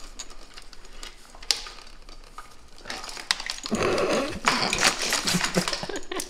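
A bundle of insulated wires being handled and pulled free by hand, with rustling, light clicks and scraping against the bike's plastic parts and frame; the handling gets busier and louder a little over halfway through.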